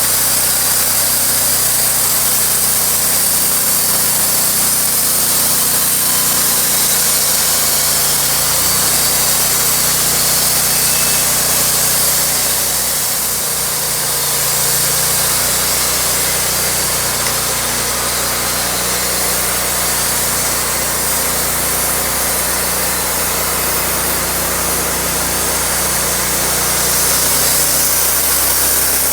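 Sawmill running: a steady engine with a sawing hiss from the blade, the level easing slightly about halfway through.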